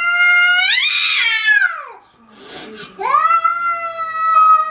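A pet animal's long, drawn-out wailing cries, two of them. The first rises a little and then slides down in pitch. After a short rushing noise in the gap, the second is held and then falls away.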